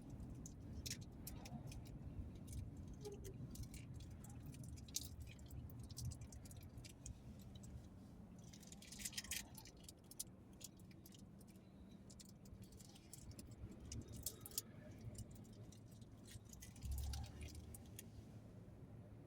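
Low, steady rumble of a moving vehicle heard from inside, with many faint, short clicking and jingling rattles scattered through it, a denser patch of them about halfway through.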